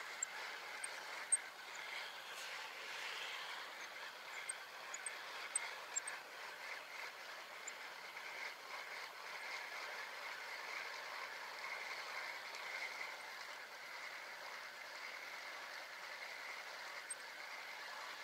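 Faint, steady outdoor background noise, with a few brief high chirps in the first six seconds or so.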